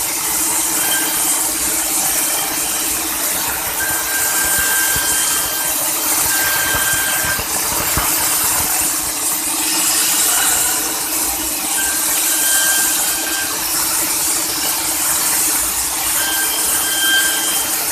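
CNC machine cutting a bangle: a steady machine hum with hiss, and a high squeal from the cutting that comes and goes several times.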